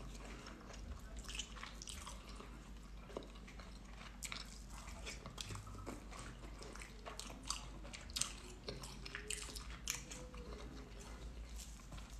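A person chewing food with the mouth close to the microphone: quiet, irregular wet smacks and small mouth clicks.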